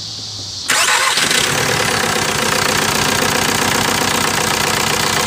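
Volkswagen TDI diesel engine starting: it fires up suddenly within the first second and settles into a steady idle. The owner says this engine has a stuck piston ring.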